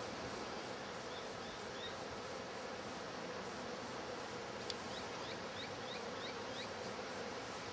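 Many honey bees buzzing steadily around their log hive, an even hum, with a single sharp click a little past halfway.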